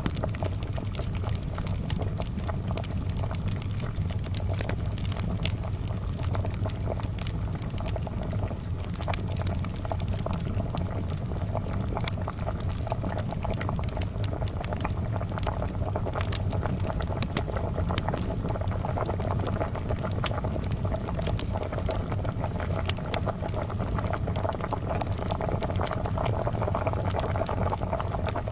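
Kettle boiling steadily, mixed with the crackle of a charcoal fire: many small, sharp snaps scattered over the even bubbling hiss.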